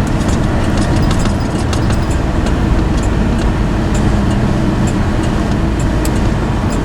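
Truck driving: steady engine and road noise.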